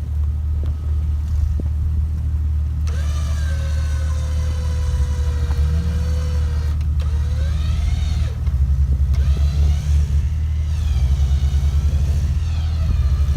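Vehicle engine running steadily during a snow recovery. A few seconds in, an electric motor whine rises over it for about four seconds, typical of a winch hauling the Jeep. In the second half the low rumble turns fast and pulsing.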